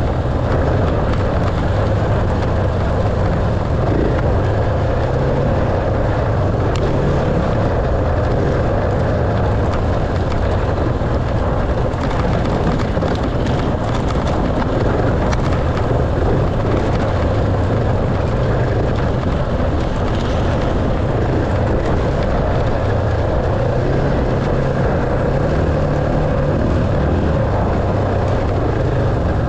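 Enduro dirt bike engine running steadily while riding, its level even throughout, with only small shifts in pitch.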